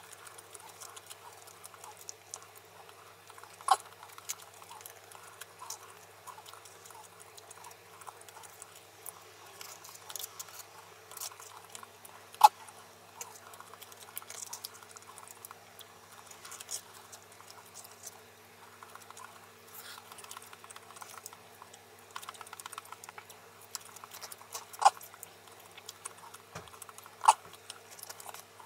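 Wooden chopsticks clicking and scraping against a thin-wood bento box as rice and chestnuts are picked out, a quick patter of small ticks with four sharper clicks.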